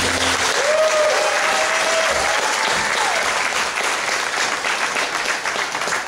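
Audience applauding in a hall as a stage song ends. A cheer rises and falls over the clapping during the first few seconds.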